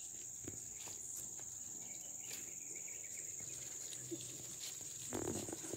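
Steady high-pitched chirring of insects, with faint scattered ticks and a brief rustle near the end.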